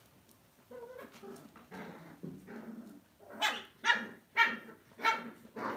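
Lhasa Apso dogs play-fighting: softer growling at first, then a run of about five sharp barks roughly half a second apart in the second half.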